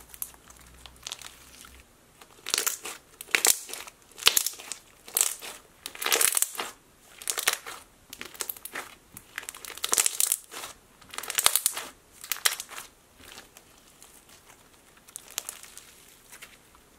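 Overactivated foam-bead slime being stretched and squeezed by hand, giving crunchy crackles and bubble pops in bursts about once a second, quieter near the end.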